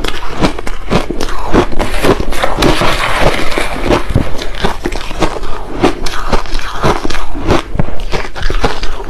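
Crushed ice being chewed close to a clip-on microphone: rapid, loud crunching and crackling. About three seconds in, a metal spoon scrapes and scoops through the crushed ice in the pot.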